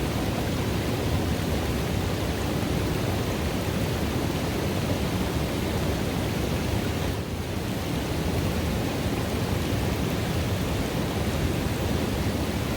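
Running river water rushing steadily into a pool: a dense, even rush, strongest in the deep range, with a slight dip in level about seven seconds in.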